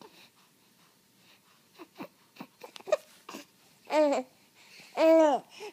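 A baby's mouth noises: a run of small clicks and lip smacks, then two loud vocal squeals about a second apart, each rising and then falling in pitch.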